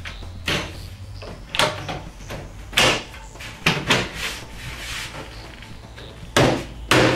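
Wooden cabinet panels knocking and clacking as they are pressed down onto their metal cam-lock brackets to seat them: about seven sharp knocks, the loudest two near the end.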